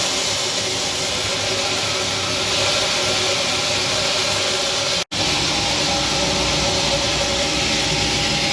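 Rotary seed dryer running: a steady hissing machine noise with a faint hum. The sound cuts out for an instant about five seconds in, then resumes unchanged.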